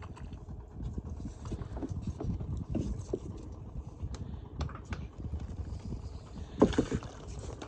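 Small fishing boat under way on the creek: a low, uneven rumble with irregular knocks, and a louder burst about six and a half seconds in.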